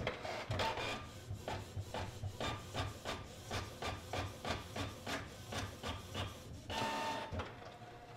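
Canon PIXMA MG3620 inkjet printer printing a black-and-white page. It starts with a whir, then gives a long run of regular clicks, about three a second, as the print head shuttles across the page. Near the end there is another whir.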